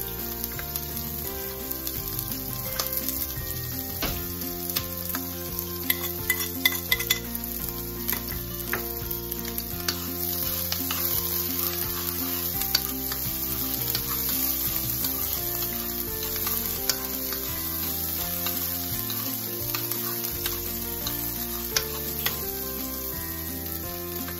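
Diced onions sizzling in hot olive oil in a nonstick frying pan, stirred with a spoon that clicks and taps against the pan now and then, most often about six to seven seconds in.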